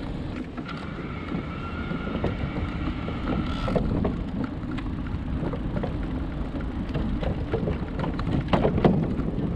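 Bicycle riding with wind rumbling on a handlebar-mounted camera and tyre noise. A thin high whine sounds for the first few seconds. Then the tyre crosses wooden boardwalk planks, giving a run of knocks and rattles that are loudest near the end.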